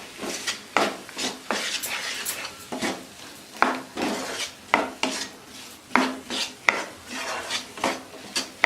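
Spatula stirring eggs and green peas in a frying pan: repeated scrapes and knocks against the pan, roughly once or twice a second, over a light sizzle.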